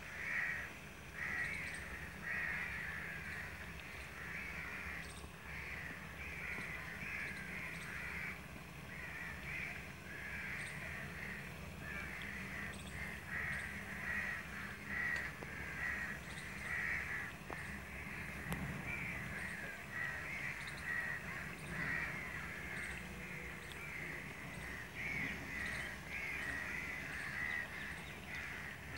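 Pakoras sizzling as they deep-fry in oil in an iron karahi, with crows cawing over it in a dense, continuous chatter.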